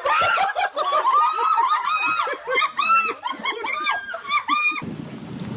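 High-pitched laughter and squeals in quick repeated bursts, each rising and falling in pitch. Near the end it cuts off suddenly into wind rumbling on the microphone.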